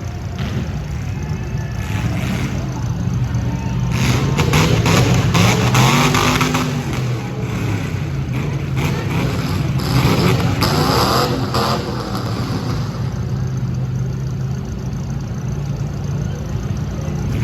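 Demolition derby car engines running and revving, with a rising and falling rev about five to seven seconds in. Clusters of bangs come around four to seven and again around ten to twelve seconds in.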